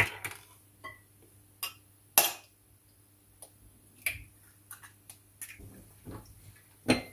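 Kitchen knife tapping and cracking an eggshell over a water-filled frying pan: a handful of short, sharp clicks spread out, the loudest about two seconds in, with small handling taps between.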